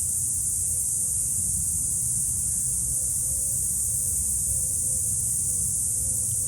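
Steady outdoor background: an even high-pitched hiss over a low rumble, with a faint steady hum, unchanging throughout. No crested screamer call is heard.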